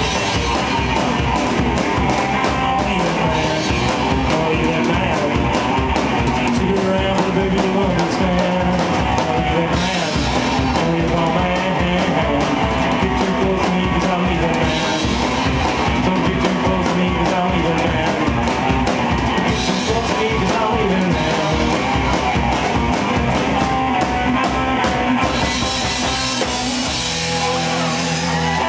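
Live rock band playing loud: electric guitar, upright bass and drum kit, with a man singing. Near the end the drumming stops and a chord is held to close the song.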